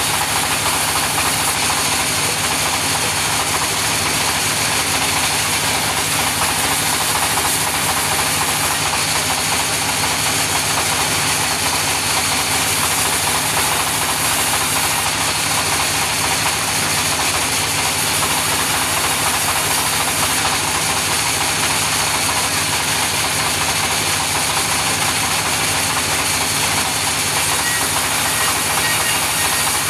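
Sawmill running steadily, a machine hum under a continuous hiss, as its saw cuts lengthwise through a log.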